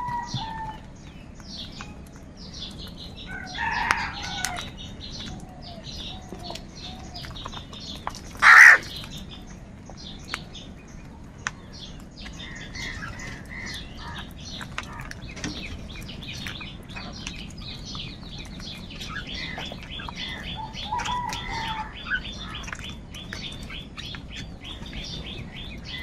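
A flock of house crows feeding on grain, with scattered caws and one much louder caw about a third of the way through. Constant small clicks of pecking run underneath, and fast high chirping joins in during the second half.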